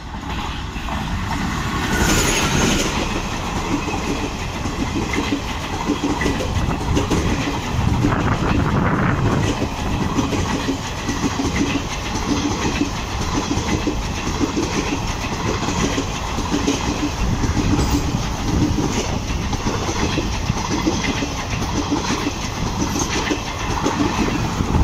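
Express passenger train hauled by a WAP-4 electric locomotive running through a station at speed without stopping. The sound rises sharply about two seconds in as it reaches the platform, then the coaches' wheels clatter over the rail joints in a steady clickety-clack.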